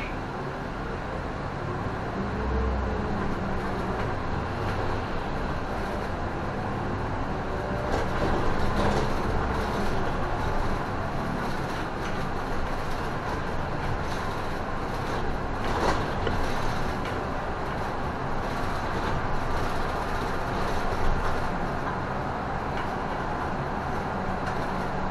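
Cabin sound of a moving Isuzu city bus: steady engine and road noise, with the engine growing louder a couple of seconds in and again about eight seconds in.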